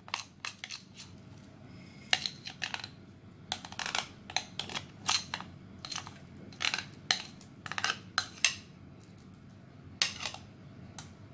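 Metal spoon scraping and clinking against a glass mixing bowl as thick chocolate cake batter is scraped out, a string of sharp, uneven scrapes with a short lull near the end.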